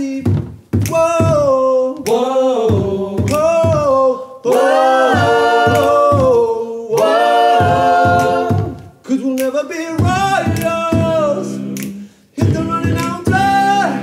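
Male a cappella vocal group singing in harmony, several voices at once with no instruments, in phrases of a few seconds broken by short pauses.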